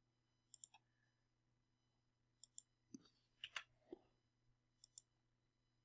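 Computer mouse button clicks, a handful of quiet double clicks spread a second or two apart over near silence, with a faint soft sound or two near the middle.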